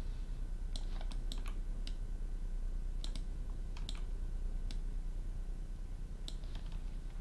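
Irregular clicks of a computer mouse and keyboard, a dozen or so short, sharp clicks spaced unevenly, over a steady low electrical hum.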